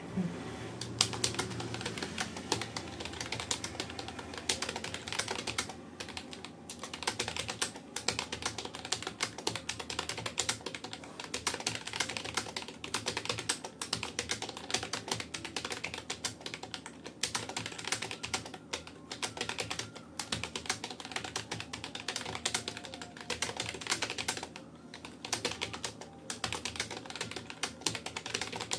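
Rapoo computer keyboard being typed on fast and steadily, a dense run of key clicks broken by a couple of brief pauses.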